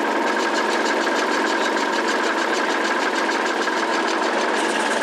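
Pritchard S5000 steam engine prototype running steadily under steam, a fast, even knocking beat with a steady whine over it, as it drives a generator through a belt and pulley.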